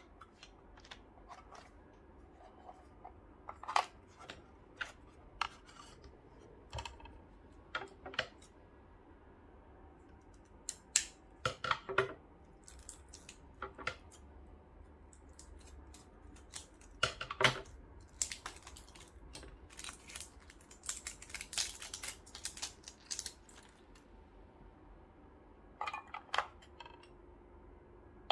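Scissors cutting and packaging being handled while a digital coffee scale is unboxed: scattered clicks and rustles, with a denser stretch of snipping and rustling about two-thirds of the way through.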